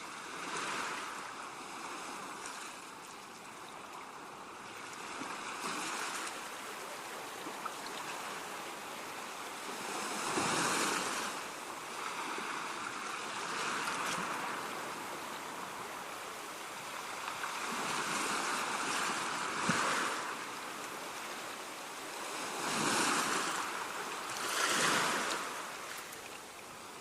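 Rushing water noise that swells and eases every few seconds.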